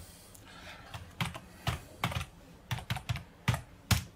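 Computer keyboard keys clicking as a password is typed: about ten keystrokes at an uneven pace, starting about a second in.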